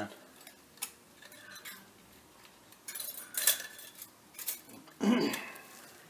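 Scattered light metallic clinks and rattles of a brake caliper and the wire it is being hung from, with a small cluster of clatters about three seconds in and a louder scrape about five seconds in.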